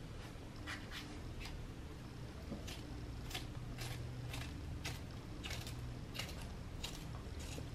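Kitchen knife cutting through a small tomato held in the hand: a series of short, crisp cuts, roughly one every half second to second, over a low steady hum.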